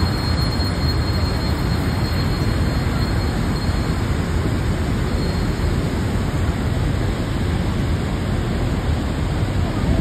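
Steady rush of white water from the Rhine Falls and the churning river just below it.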